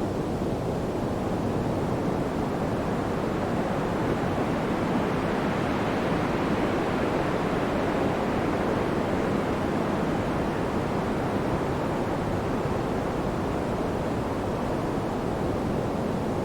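Steady pink noise: an even, deep hiss with no tones or rhythm, growing a little brighter through the middle and easing back.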